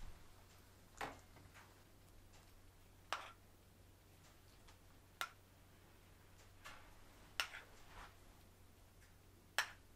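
Quiet room tone with a low steady hum, broken by soft sharp clicks about every two seconds, five plain ones in all and a few fainter ones between.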